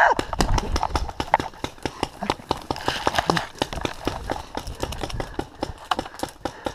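Quick, irregular thumps and clicks of a paintball player's footsteps and gear as he runs and scrambles through long grass, picked up close by a camera he is wearing.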